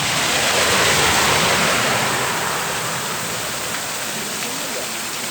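Heavy rain pouring down steadily, with a rushing swell that peaks about a second in and eases off by about two and a half seconds.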